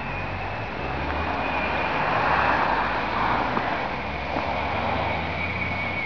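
Steady outdoor background noise, like distant traffic, with a thin high whine throughout and a swell about two to three seconds in.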